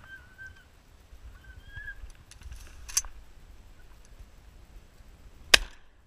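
A single shotgun shot about five and a half seconds in, the loudest sound, with a fainter sharp crack about three seconds in. Faint short high whines sound in the first two seconds.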